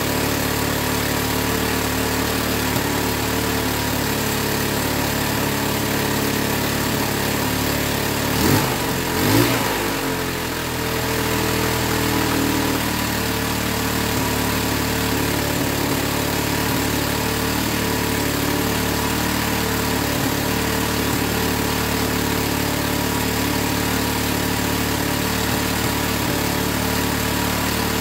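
Linhai ATV engine idling steadily, running on a newly fitted CDI unit that replaced a faulty one. It is briefly revved twice, about eight and nine seconds in, then settles back to idle.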